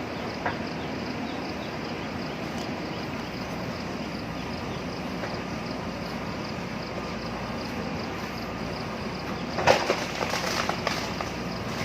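JCB backhoe loader's diesel engine running steadily while it works, with a small knock about half a second in and a burst of loud knocks and clatter near the end.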